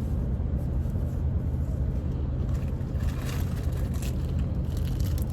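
Steady low drone of an Airbus A330-800neo's cabin on the ground, the air-conditioning and aircraft systems running without change, with some light rustling partway through.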